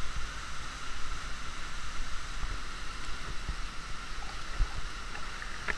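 Steady rush of water from a waterfall pouring into a canyon pool, an even hiss with no breaks.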